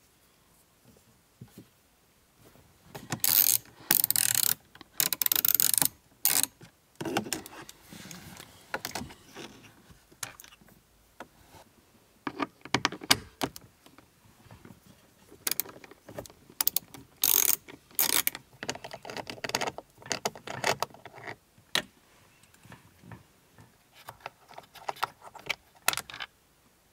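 Socket wrench ratchet clicking in several short spells as the instrument cluster's retaining bolts are undone, with lighter handling clicks between.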